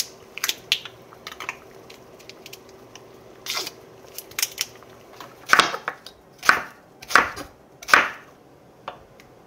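Chef's knife slicing through a leek onto a wooden cutting board: four firm cuts, a little under a second apart, in the second half. Before them, small soft clicks and squishes of minced garlic being squeezed out of a plastic cup.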